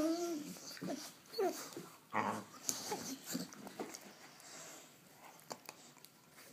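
Dogs play-fighting up close: a string of short growls and whines, busiest in the first three seconds, then quieter with a few light clicks.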